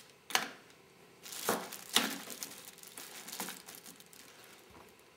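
Handling noise: about four short clicks and rustles, the loudest about two seconds in.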